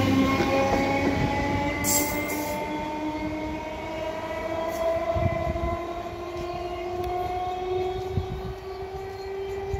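BEML-built electric multiple unit (EMU) local train pulling away, its traction motors whining in several tones that climb slowly in pitch as it gathers speed, over the rumble of the wheels.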